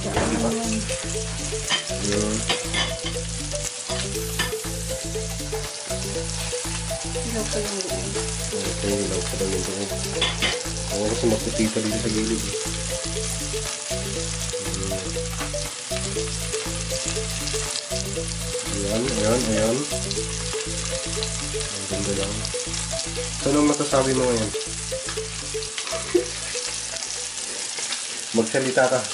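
Salmon fillets frying in a pan with a steady sizzle of hot fat.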